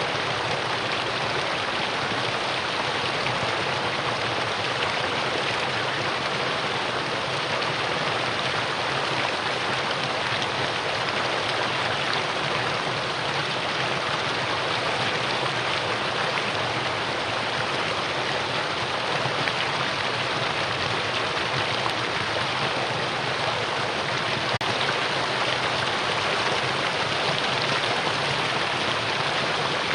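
Mountain stream rushing over rocks in a steady, even flow.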